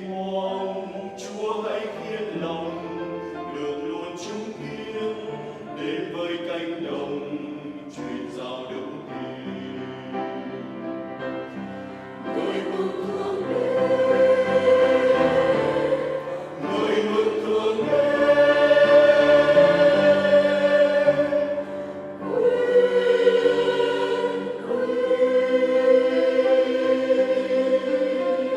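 A mixed church choir singing a hymn in parts with accompaniment, building from a softer passage to louder, sustained high notes about halfway through.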